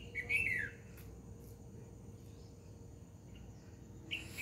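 Birds chirping: a short burst of quick chirps that fall in pitch in the first second, and another burst near the end, over faint outdoor background.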